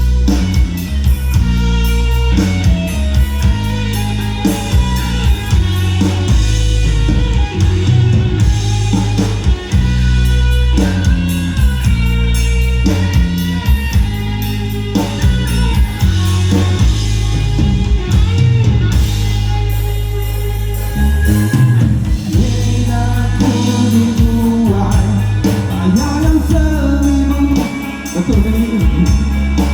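Live rock band playing loudly: heavy bass and drum kit under electric guitar, with a singer's voice on top.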